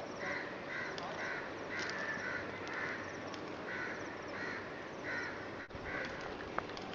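A bird calling over and over: a string of short, harsh calls about two a second with brief pauses, and one sharp click near the end.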